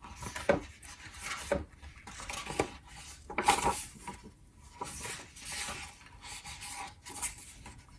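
Pages of a paper agenda being leafed through and handled: uneven rustling with several sharper flicks.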